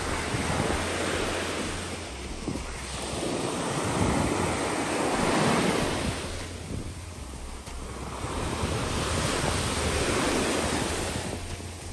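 Sea waves washing in and drawing back, the surf swelling and ebbing every few seconds, with wind rumbling on the microphone.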